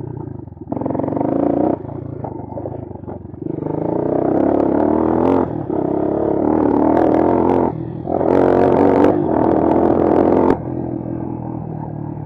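Bashan Brozz 250 dual-sport motorcycle's single-cylinder engine under riding load, opening up in four or five surges of throttle with the pitch rising and falling, then settling to a steadier, lower running near the end. A few sharp knocks and rattles from the bike over rough ground.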